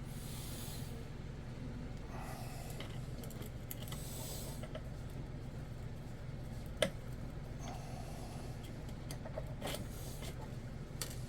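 Metal boat parts (brass stuffing tube and strut) being handled: brief scrapes and rustles and one sharp click about two-thirds of the way through, over a steady low hum.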